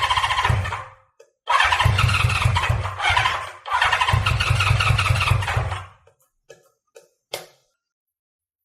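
A Honda CB550F's electric starter cranking its inline-four engine in three separate bursts of one to two seconds, with the engine not catching. A few light clicks follow near the end.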